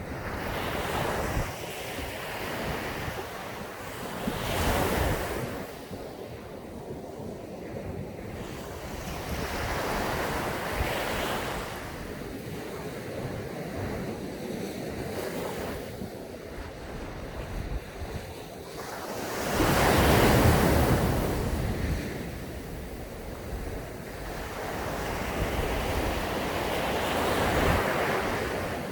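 Sea waves breaking and washing up a sandy beach, the surf swelling and fading every few seconds, with the biggest wave about two-thirds of the way through. Wind noise on the microphone adds a low rumble.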